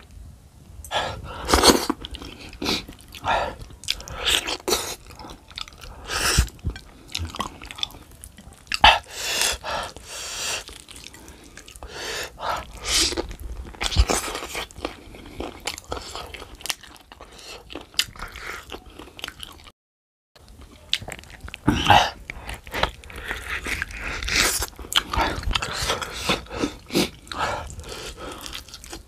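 Close-miked eating of stewed cow's foot held by hand: repeated biting, tearing and chewing of the meat and tendon with irregular mouth smacks. The sound drops out completely for a moment about two-thirds through.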